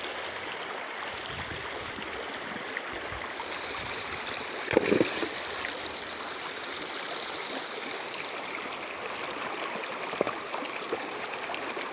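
Shallow river water running over rocks, a steady rushing and gurgling. A brief louder sound about five seconds in.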